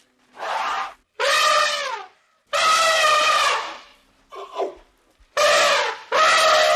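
Elephant trumpeting: a series of about six brassy calls, each under a second and a half, with short gaps between. Each call falls in pitch at its end.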